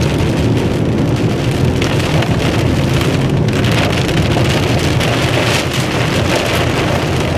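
Heavy rain pelting a moving car, heard from inside the closed cabin over a steady low road and engine rumble. The rain is driven by a tornadic storm's rear-flank downdraft.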